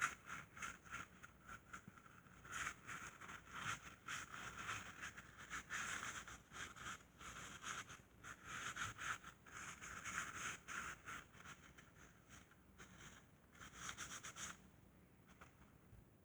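Faint, irregular scratching and rubbing of a rag wiping down the transmission case around the shift solenoid to check for leaks, stopping near the end.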